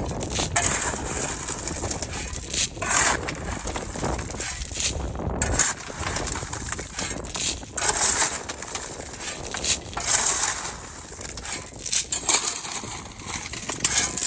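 Shovels scraping and crushed stone crunching and rattling in irregular strokes as gravel is dug and tipped into place, with a low rumble underneath that stops about halfway through.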